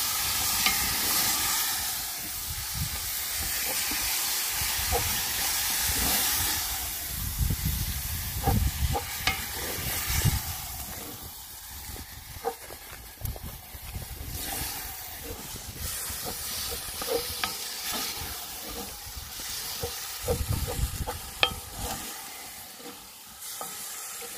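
Beef mince sizzling in a cast iron pot as a wooden spoon stirs and scrapes it, with scattered sharp clicks of the spoon against the pot.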